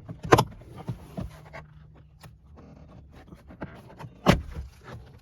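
Plastic rear-door armrest trim of a Nissan Maxima being pulled up by hand, its clips popping loose with a few sharp clicks and small rattles; the loudest clicks come about a third of a second in and about four seconds in.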